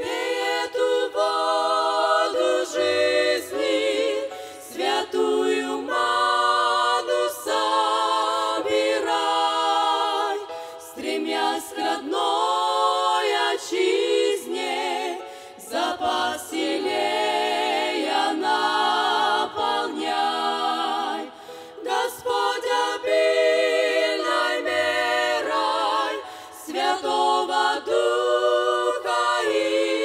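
A women's vocal group singing a slow Christian hymn in several voices, phrase by phrase with short breaths between.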